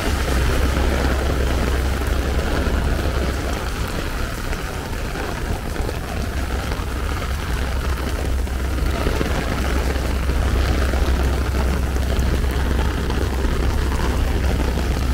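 Heavy rain falling steadily on an umbrella, with a constant low rumble underneath.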